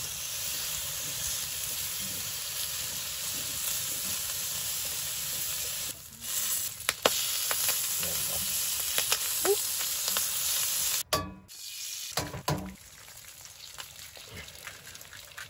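Food sizzling in a frying pan, a steady hiss, with a few light knocks of a utensil. The sound breaks off abruptly about six and eleven seconds in and is quieter over the last few seconds.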